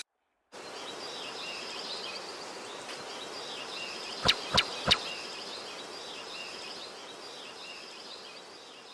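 Outdoor nature ambience: a steady hiss with small birds chirping over and over in short calls. Three sharp clicks come quickly one after another about four and a half seconds in, and the ambience fades near the end.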